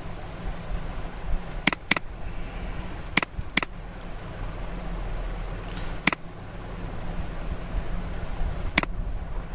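Computer mouse clicking: a quick double click, a second pair of clicks, then two single clicks, over a steady low hum.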